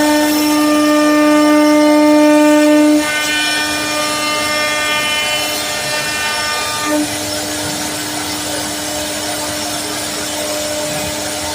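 CNC router spindle carving wood, a steady high whine with a strong even tone and overtones. Its level drops about three seconds in and the tone shifts again about seven seconds in as the cutting load changes.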